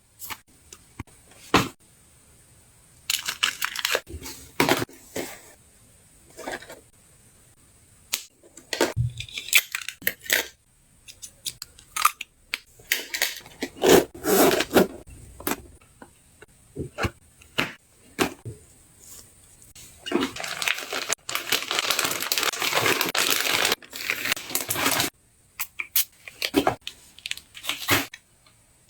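Luggage packing by hand: items and plastic packaging handled and set down, with crinkling rustles and soft knocks coming in irregular bursts, and a longer continuous rustle about two-thirds of the way through.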